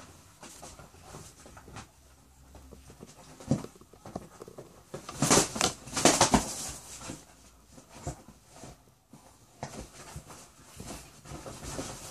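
A small dog and a rooster scuffling on a leather couch: paws and claws scratching and scrabbling on the leather, with soft thumps. There is a louder flurry of scuffling about five to six seconds in.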